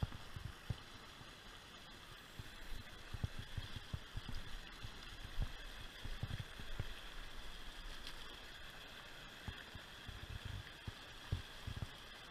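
Mountain creek water rushing and splashing steadily over rocks in a small cascade. Irregular dull low thumps on the microphone, from wind or handling of the body-worn camera, stand out a few times.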